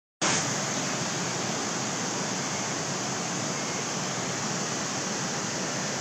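Steady rushing roar of Thiruparappu Falls, the water pouring without a break and holding an even level.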